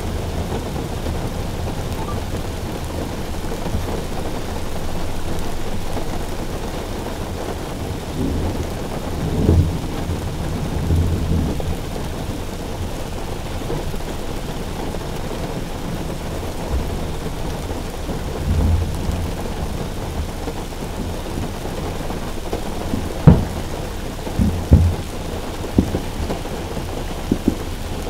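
Steady rain beating on a car roof, with low rolls of thunder about a third of the way in and again past the middle. Near the end comes a quick series of sharp, loud bangs.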